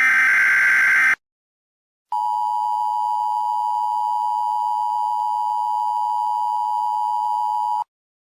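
Emergency Alert System tones. About the first second is the end of a raspy SAME digital header burst. After a second's gap comes the steady two-tone EAS attention signal, near 1 kHz, lasting almost six seconds before it cuts off abruptly.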